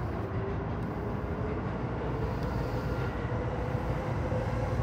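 Sotetsu 12000 series electric train running, heard from inside the front car: a steady low rumble of wheels on rail with a faint motor whine rising slowly in pitch as the train picks up speed.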